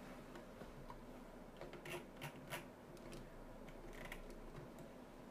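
Faint clicks of a computer keyboard and mouse: a handful of separate key and button presses, several close together in the middle, over a low steady hum.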